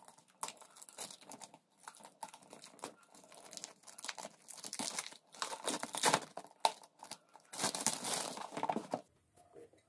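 Clear plastic shrink-wrap being torn and peeled off a book, crinkling in irregular bursts. It is loudest in the second half and dies away near the end.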